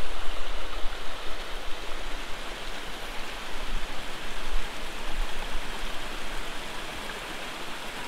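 Small mountain waterfall rushing steadily, growing gradually fainter over several seconds.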